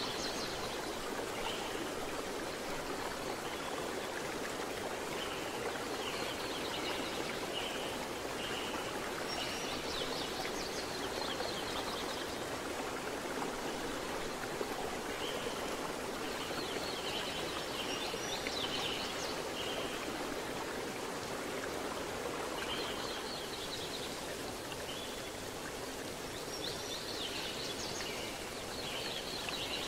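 Steady rush of a flowing river, with a bird singing short phrases of high notes that recur every few seconds.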